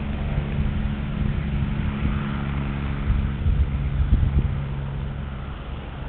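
Eurocopter EC145 twin-turbine helicopter taking off and climbing away: a steady rotor and turbine drone with a low hum, fading over the last second or so as it gains distance.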